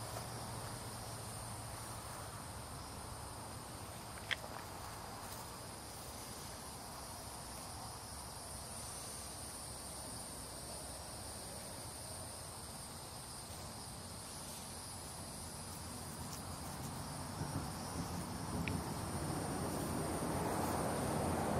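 Steady high-pitched insect chorus, with one sharp click about four seconds in and a rising noise swelling over the last few seconds.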